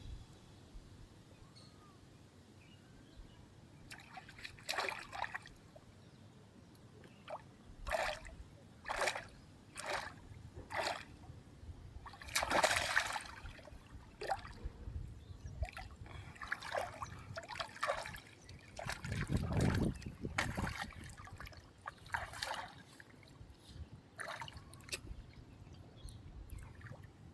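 Water splashing and sloshing in a dozen or so short, irregular bursts over a low background, the loudest a little under halfway through.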